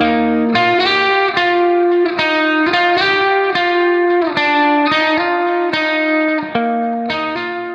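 Background music: a plucked guitar melody, fading out near the end.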